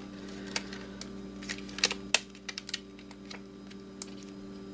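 Small irregular clicks and ticks as a thin metal LCD screen frame and its layers are pried apart with a small hand tool, a few coming close together about halfway through. A steady low hum runs underneath.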